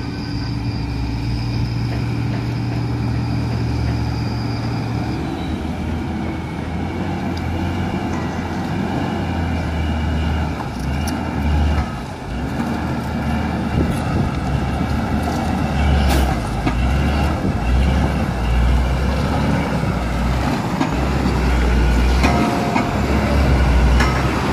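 A Mitsubishi Fuso truck's diesel engine runs steadily with a high whine at first. From about five seconds in it labours under load with an uneven low rumble as the truck pushes its wheels through deep mud.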